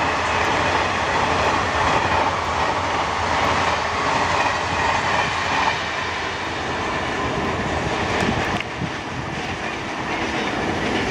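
Express passenger train running past at speed, with a steady rush of wheel and rail noise and clattering over the rail joints. The noise eases a little about six seconds in.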